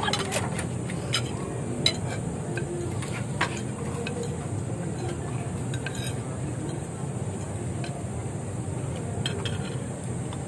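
Cutlery clinking against a plate now and then during a meal, with a steady low background hum.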